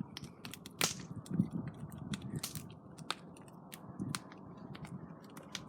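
Wood fire crackling, with irregular sharp snaps and pops.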